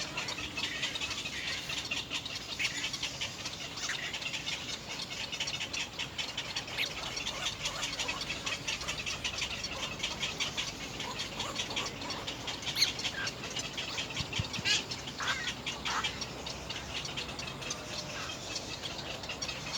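Nestling birds cheeping in a rapid, continuous chatter of short high-pitched chirps, with a few louder falling calls about three quarters of the way through.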